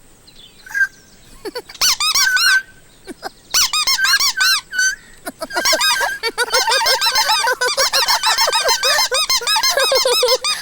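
Squeaky toy mouse squeaking, a few separate squeaks at first, then rapid, almost continuous squeaking through the second half.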